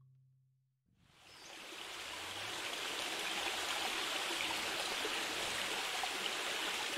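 Steady rushing noise like flowing water from a stream. It fades in about a second in, after a moment of silence, then holds even.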